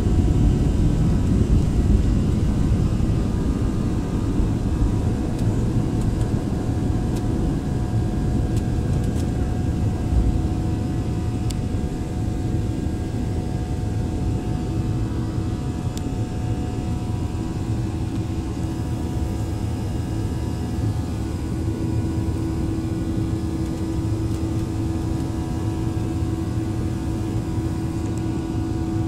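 Airliner cabin noise during takeoff: a heavy runway rumble under the engines at takeoff power, settling after about ten seconds into a steady engine drone with a hum as the plane climbs.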